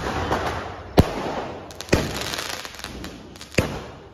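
A 60-shot sky shot firework cake firing: a hissing rush of launches broken by three sharp bangs, with a spell of fine crackling about two seconds in.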